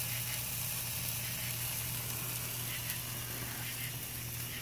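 New York strip steak sizzling on a hot grill grate: a steady, even hiss, with a steady low hum underneath.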